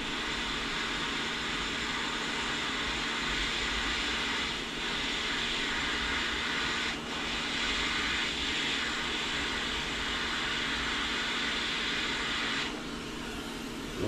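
Hot-air rework station's gun blowing a steady rush of air with a faint motor hum, cutting off abruptly near the end.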